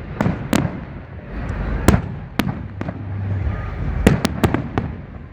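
New Year fireworks bursting: a string of sharp bangs at irregular intervals, with a quick cluster of three or four about four seconds in, over a low background rumble.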